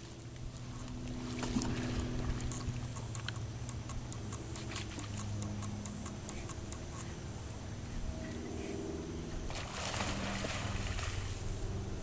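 A steady engine drone, with a short burst of noise about ten seconds in.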